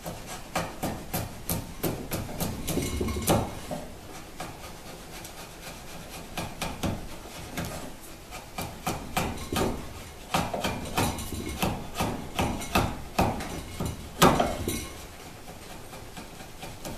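A wide chisel pushed by hand, paring thin shavings off the cheek of a tenon in fairly dry wood. The short scraping cuts come a few a second, in two spells with a quieter lull between them. One sharper stroke stands out near the end.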